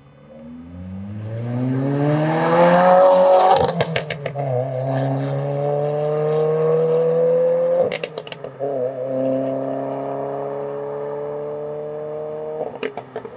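2022 Subaru WRX's turbocharged 2.4-litre flat-four accelerating hard through an aftermarket axle-back exhaust, its note climbing through the gears. Sharp crackles and pops burst out at each upshift, about 4 and 8 seconds in and again near the end, each followed by a lower note.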